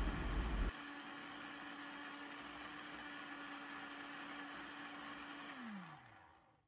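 Kenwood countertop blender motor running steadily while it blends ice cubes and milk into an iced mocha, after a louder rumble at the very start. About five and a half seconds in it is switched off and its hum falls in pitch as the motor winds down to a stop.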